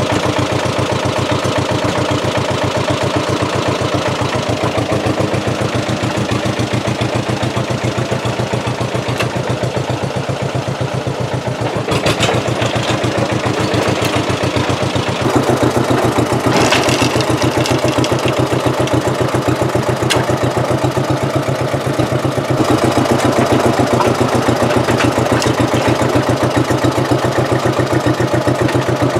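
An engine idling steadily with a rapid, even chug, its level stepping up slightly a couple of times, with a few sharp knocks about twelve and sixteen seconds in.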